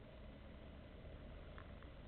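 Faint, steady low rumble and hiss of a bicycle ride picked up by a small action camera's microphone: wind and rolling noise, with a couple of faint ticks near the end.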